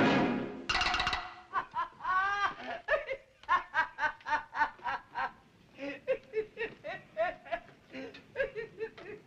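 A loud orchestral passage breaks off just after the start. Then a person laughs in quick repeated bursts that rise and fall in pitch.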